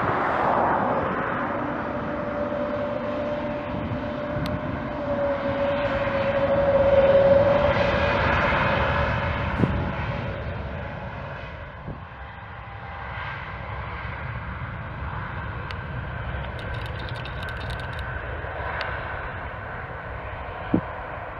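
Airbus A320neo's Pratt & Whitney PW1100G geared turbofan engines running as the jet rolls along the runway. A steady whine is loudest about seven seconds in and then fades as the aircraft moves away.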